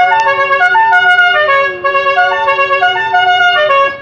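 Jeep's telolet horn, a multi-trumpet musical air horn, playing a quick tune of stepped notes over one held low note, then cutting off just before the end.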